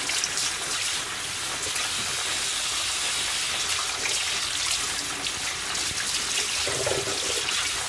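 Kitchen tap running, the stream splashing onto a small bowl held under it in a stainless steel sink as it is rinsed, a steady rush of water.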